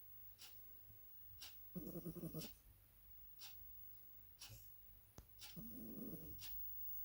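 A sleeping pet snoring: two rasping snores about four seconds apart. Faint, even ticks about once a second run underneath.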